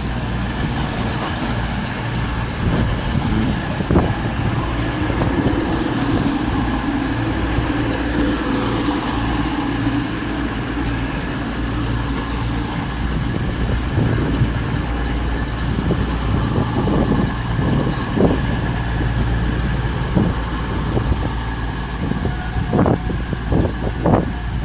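Class 222 Meridian diesel multiple unit at the platform, its underfloor diesel engines running with a steady drone and low hum. Sharp clicks and knocks come in a run over the last several seconds.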